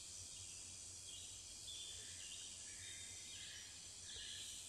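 Faint room tone: a low steady hum with patches of faint high hiss coming and going.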